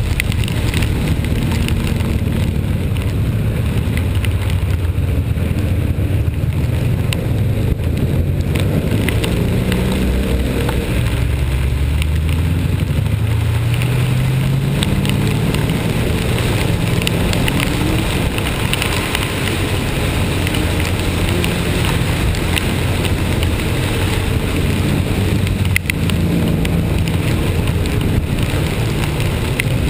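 Vehicle engine running, its pitch rising a few times as it accelerates, over a steady wash of rain and wind noise.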